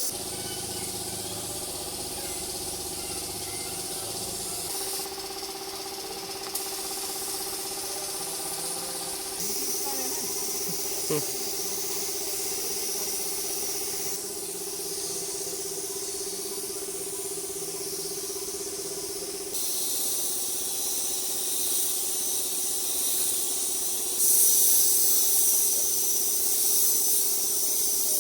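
Compressed-air spray gun hissing while paint is sprayed, its hiss changing level abruptly several times, over a steady hum.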